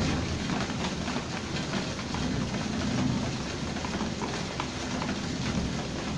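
Heavy rain falling, a steady hiss with many irregular drops tapping close by.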